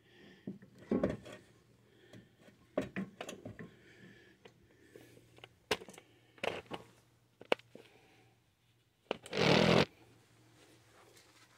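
Handling noises as a new strut-and-spring assembly is worked up into place in the wheel well: scattered light knocks and clicks of metal parts touching, then a louder, longer scrape about nine seconds in.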